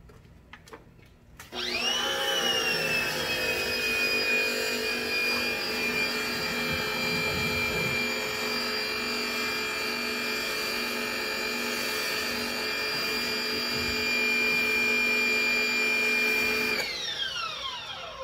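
Portland 1750 psi electric pressure washer starting suddenly, its motor and pump running with a steady high whine over the hiss of the water spray. Near the end it shuts off and the whine winds down in falling pitch.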